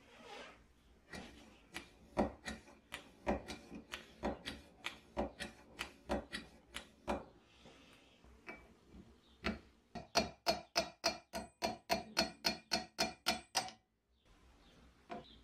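A quick, even run of light metallic taps, about four or five a second: a small hammer driving a pin into the hinge clip on a vintage petrol blowtorch's burner. Before it come scattered knocks and clicks of metal parts being handled.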